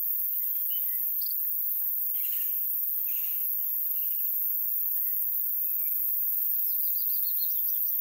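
Small birds chirping and calling here and there, with a quick run of repeated high notes near the end, over a steady high hiss of insects.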